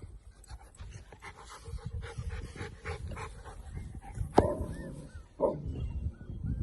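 Kangal shepherd dog giving one sharp bark about four seconds in and a shorter vocal sound a second later, with faint high whimpers around them, over low rumbling noise.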